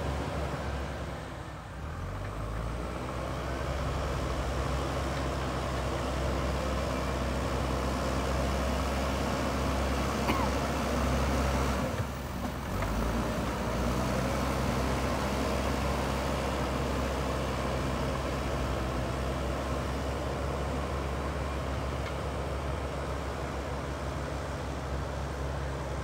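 Diesel engines of JCB backhoe loaders running steadily as the machines drive along the dirt embankment. The sound dips briefly about two seconds in and again near the middle.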